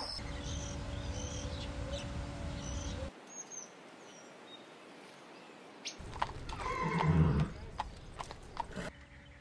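Horses: one loud, low-pitched horse call about seven seconds in, followed by a few sharp hoof knocks. Before it comes a steady low rumbling noise, then a quiet stretch with a few faint high chirps.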